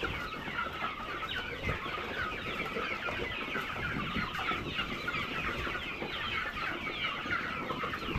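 A large flock of chickens clucking and calling all at once, a dense, steady chatter of many overlapping short calls, as the hungry birds crowd the feeders at feeding time.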